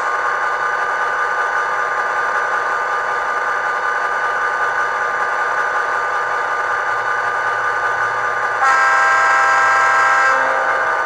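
ESU LokSound decoder in an HO-scale KATO SD45 playing a steady EMD diesel prime-mover sound through the model's small speaker. About nine seconds in, a louder air-horn blast sounds for about a second and a half, then cuts off.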